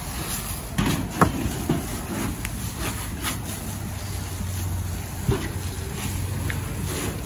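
Steady low engine drone under the hiss of a fire hose spraying water onto burning debris, with a few sharp pops about a second in and again past the five-second mark.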